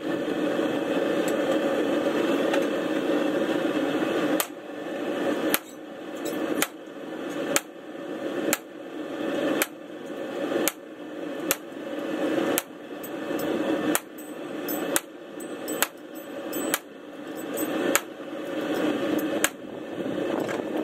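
Hand hammer striking steel bar stock clamped in a vise, about one blow a second, beginning about four seconds in. The blows fall over the steady rush of a gas forge burner.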